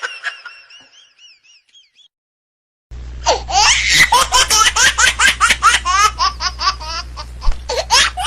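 Laughter trails off, then there is a moment of dead silence. About three seconds in, loud, high-pitched laughter starts abruptly and runs on in quick repeated bursts over a low steady hum.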